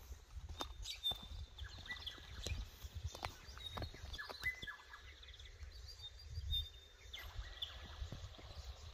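Several birds calling in riverside bush, with short high chirps and whistles repeating on and off throughout. Underneath there is a low steady rumble and a few faint clicks.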